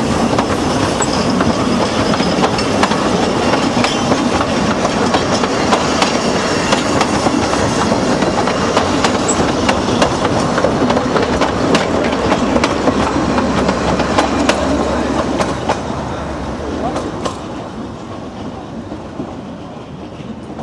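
Ffestiniog Railway narrow-gauge passenger carriages rolling close past, their wheels clattering over the rail joints with many sharp clicks. About three-quarters of the way through the sound fades as the train draws away.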